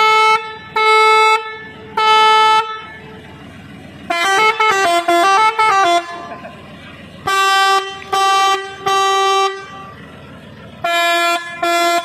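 Remote-controlled set of three chrome trumpet air horns sounding loud, short blasts in groups of three. Midway the horns play a quick tune of alternating notes, and the last blasts are at a lower pitch.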